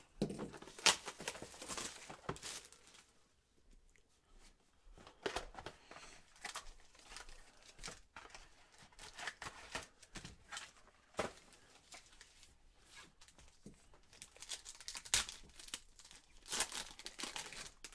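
Plastic wrapping on a sealed box of trading cards being torn open and crinkled by hand, in several rustling rips.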